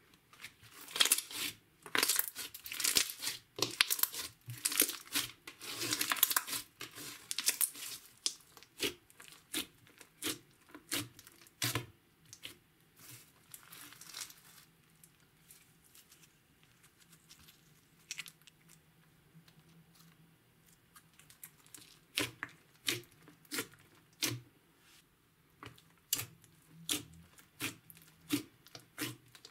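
Green slime with foam beads and glitter being stretched, folded and pressed by hand, giving sticky crackles and clicking pops. The crackling is dense for the first several seconds, thins to scattered pops in the middle, and picks up again near the end.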